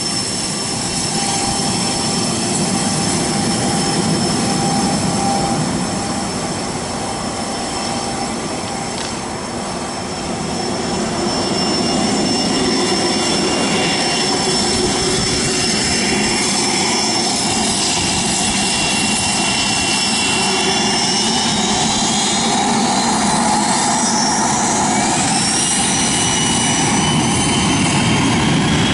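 Cessna Citation Sovereign's twin Pratt & Whitney PW306C turbofans running at taxi power: a steady jet rush with a high whine. About twenty seconds in, the whine rises in pitch over several seconds.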